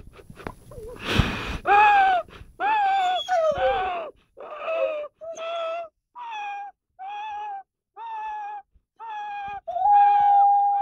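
Young Rottweiler howl-singing: a string of about ten short, high howled notes, roughly one a second, the first ones bending in pitch and the later ones flat, ending in one long held note near the end. A loud breathy huff comes about a second in.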